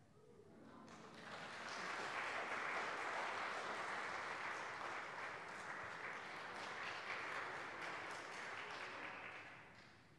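Congregation applauding, swelling over the first couple of seconds and dying away near the end.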